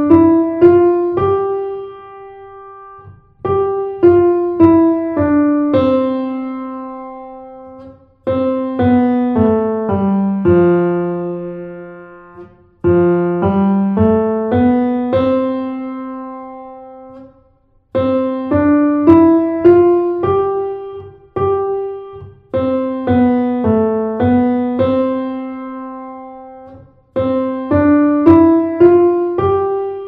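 Grand piano playing a simple beginner melody in the middle register, mostly one note at a time. It comes in short phrases of a few notes, each ending on a held note that rings and dies away, with a new phrase about every four to five seconds.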